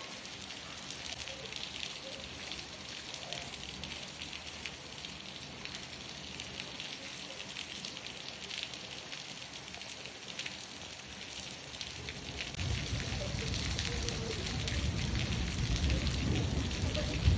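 Steady rain falling, with a fine patter of individual drops. About two-thirds of the way through, a low rumble comes in and stays, and a single short, loud knock sounds at the very end.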